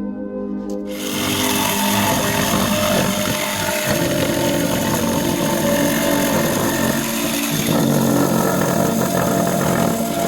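A power tool starts about a second in and runs steadily on wood, a loud, even machine noise.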